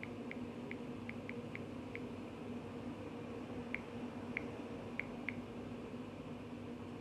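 Smartphone touchscreen keyboard clicking as a text message is typed: a quick, uneven run of short high ticks over the first two seconds, then four louder ones a little past the middle. A low steady hum lies under it.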